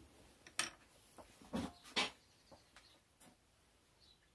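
A few light clicks and knocks as a pencil is set down on a wooden workbench and small items are handled, about four sharp taps in the first three seconds.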